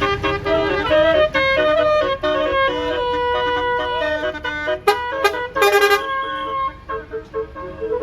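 Bus telolet horn playing a tune: a run of pitched horn notes that step and slide up and down in pitch, with short breaks between phrases.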